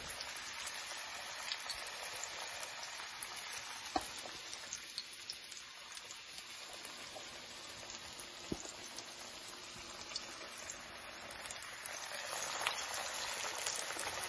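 Cornstarch-coated barracuda steaks deep-frying in hot oil: a steady sizzle with scattered crackles and pops, growing louder about twelve seconds in.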